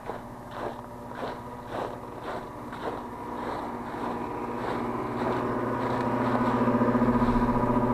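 Carrier heat pump's outdoor condenser fan motor running up: a pulsing whoosh about twice a second gives way to a steady, growing hum with several tones. This is the terrible resonating sound of a newly fitted fan motor, which the technician takes for a motor fighting against itself inside.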